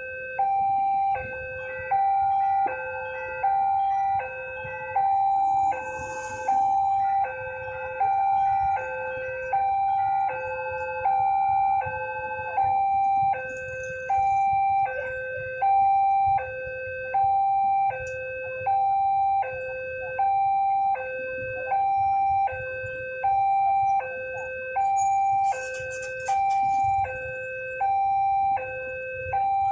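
Railroad level-crossing warning alarm sounding its electronic two-tone signal, a higher and a lower tone alternating about every three-quarters of a second without a break. It is the warning that a train is approaching and the gates are closed.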